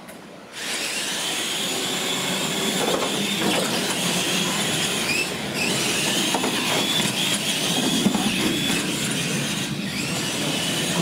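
R/C monster trucks racing: the whine of their motors and gears, rising and falling with the throttle, over tyre noise on a concrete floor, starting suddenly about half a second in.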